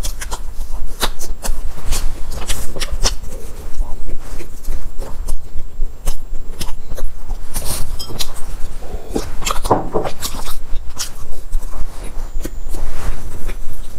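Close-miked chewing of a soft, crumbly pastry: a string of irregular wet clicks and lip smacks, busiest about two-thirds of the way through.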